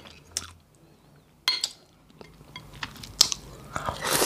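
A person chewing food, with scattered sharp mouth clicks, then biting into boiled corn on the cob near the end.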